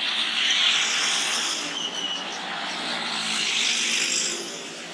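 Road traffic passing on a wet street, the tyres hissing on the wet asphalt: a motor scooter goes by about half a second in, and a minibus passes close around three and a half seconds in.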